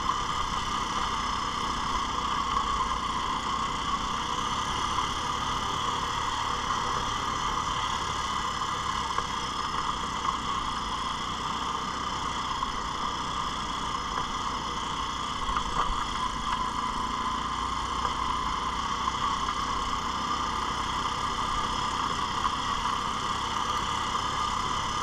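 ATV engine running steadily while riding along at an even pace.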